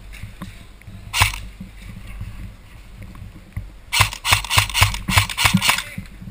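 Running footsteps picked up by a camera on the runner himself, about four or five quick steps a second, starting about four seconds in, each with a low thud and gear rattle. One single sharp knock about a second in.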